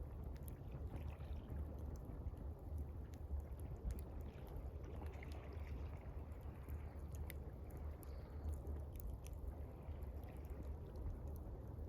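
Campfire crackling with scattered sharp pops over gently moving water and a steady low rumble.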